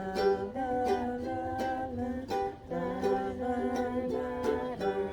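Strummed acoustic string accompaniment playing an instrumental break in the song: steady chords, about two strums a second.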